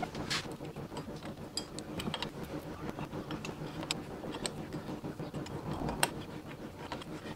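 Hex key clicking and rattling in a bicycle crank bolt as the crank arm is fitted and tightened: a string of small, irregular metallic clicks, the sharpest about six seconds in.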